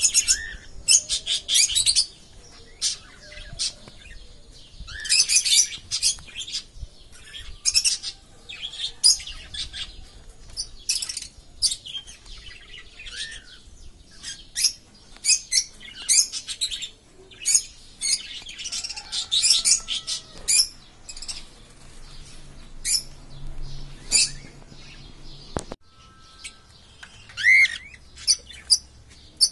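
Many small aviary birds chirping: a busy, overlapping stream of short, high chirps and tweets, with a single sharp click about three-quarters of the way through.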